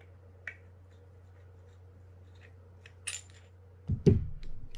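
Small metal reel parts being handled: a few faint ticks, a light metallic clink about three seconds in as the steel pinion gear is laid on the work table, then a dull thump on the table about four seconds in.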